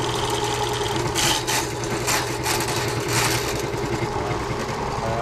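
Ridgid K60 sectional drain-cleaning machine running, its electric motor humming steadily while the spinning cable is fed into a drain cleanout to clear a clogged branch line. A few short bursts of noise come between about one and three and a half seconds in.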